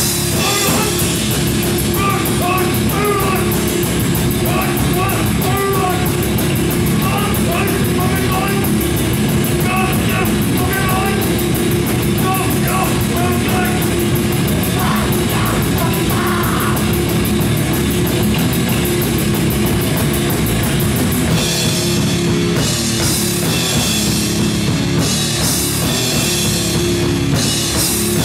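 Live grindcore band playing loud and fast: electric guitar, bass guitar and a drum kit with rapid, dense drumming, and vocals over the first half or so. About three quarters of the way through, the drums change to a different, more broken-up beat.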